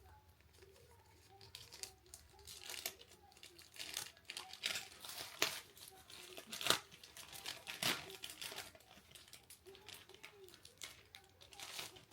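Anti-static wrapping around a replacement circuit board being torn open and unwrapped: irregular crinkling and rustling of the plastic.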